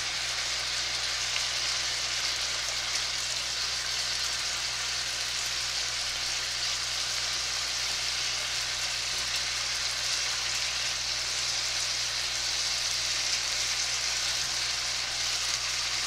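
Beef frying in a skillet with a steady sizzle, stirred as it cooks in the juice it has released.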